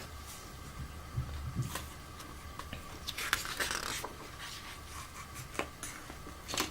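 Paper rustling as a page of a book is turned, a brief rustle about three seconds in, with a few soft handling clicks around it.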